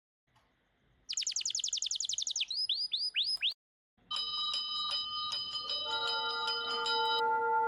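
A bird singing: a fast trill of about a dozen high, falling notes, then four slower swooping notes. After a short pause a bell rings, struck repeatedly, with several steady tones sounding together.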